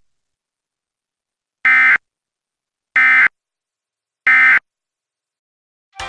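Three short bursts of Emergency Alert System SAME digital data tones, each about a third of a second long and spaced about a second apart: the end-of-message code that closes an EAS alert.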